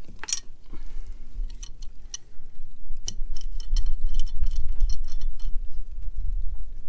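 Metal wrenches clicking and clinking against a hose bib's packing nut as it is being loosened, with a cluster of quick clicks a few seconds in, over a low rumble.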